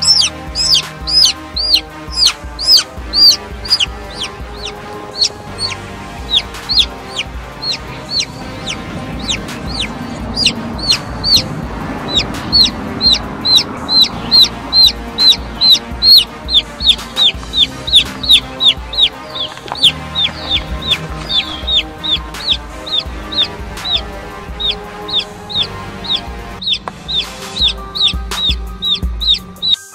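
A domestic chicken chick peeping loudly and over and over, about two to three sharp falling peeps a second: the distress call of a chick under threat. Music plays underneath.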